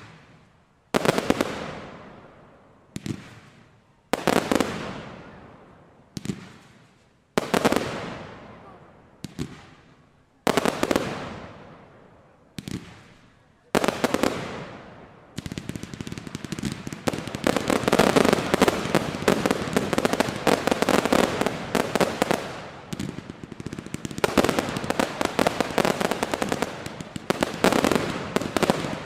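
Fireworks display: aerial shells bursting one at a time, each a sharp bang with a long fading tail, about one every one to two seconds. About halfway through, the bursts merge into a dense, continuous crackling barrage of the finale.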